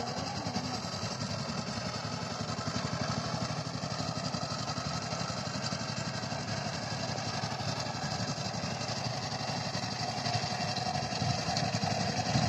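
Two-wheel power tiller's single-cylinder diesel engine running steadily under load while tilling a dry field, with a fast, even beat. It grows louder near the end as the machine comes closer.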